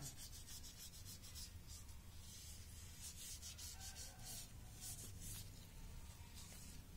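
Faint, irregular rustling and rubbing of stiff orchid leaves as hands handle them, over a low steady hum.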